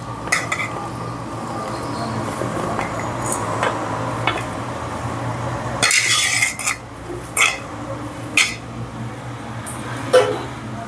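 Chunks of raw mango sliding and scraping across a steel plate as a hand pushes them off into a glass bowl, with scattered clinks of metal on glass. About six seconds in there is a louder stretch of scraping, followed by a few sharp clinks.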